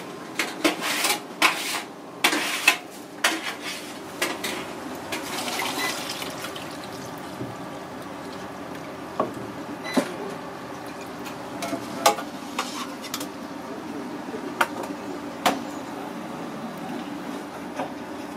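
Live loaches splashing and wriggling in shallow water: a dense flurry of wet splashes for the first several seconds, then only scattered ones. Occasional sharp clinks of metal kitchenware, a mesh strainer and a stainless steel tray, sound over a steady low hum.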